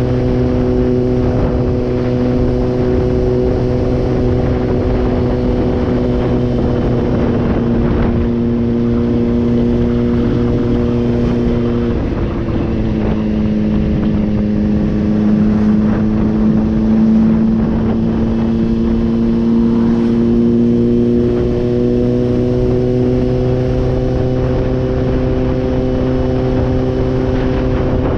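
Honda CBR600RR inline-four sport bike engine running at a steady cruising speed, heard from the rider's seat. About twelve seconds in, its pitch breaks briefly and settles lower, then it climbs slowly over the last third.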